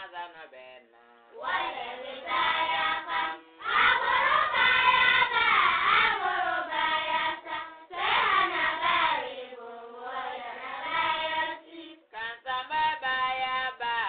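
Music with voices singing a melody in phrases, loudest through the middle.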